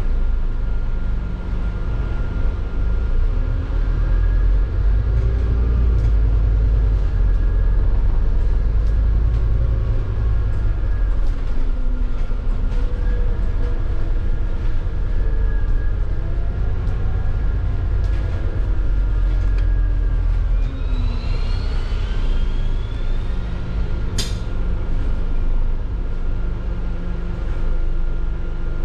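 Scania N250UD double-decker bus's five-cylinder diesel engine heard from inside the cabin, pulling along with its pitch rising and falling through the gears. About 20 seconds in the engine eases off as the bus slows, with a rising whine and then a single sharp click a few seconds later.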